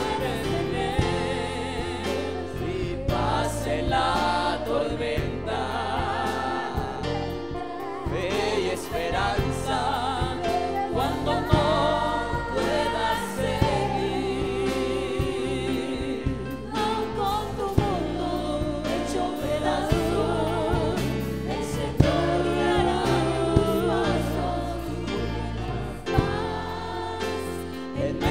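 Live worship song played by a church band: women's voices singing with vibrato into microphones over a drum kit and electric bass guitar.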